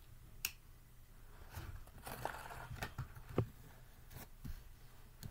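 Faint handling sounds of a small plastic Bakugan toy and its packaging: a few sharp clicks and some light rustling.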